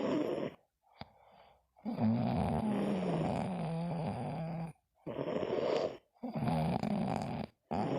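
Snoring, in five separate snores with a droning, pitched tone: a short one at the start, a long one of about three seconds whose pitch slowly falls, then three shorter ones about a second each.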